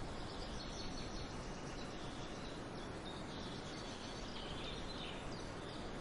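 Steady forest ambience, a low even hiss and rumble, with scattered faint high bird chirps.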